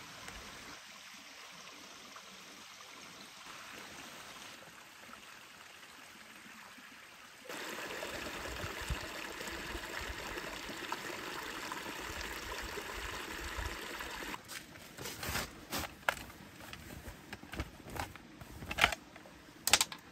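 Small woodland stream trickling over stones, coming in suddenly about a third of the way through after a faint outdoor hush. It breaks off after about seven seconds, and scattered sharp clicks and knocks of camping gear being handled follow.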